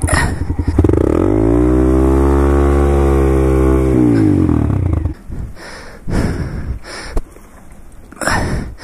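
Honda Grom's 125 cc single-cylinder engine revving up, holding high revs for about three seconds, then dropping back. After that the engine is much quieter and there are a few separate knocks and scrapes.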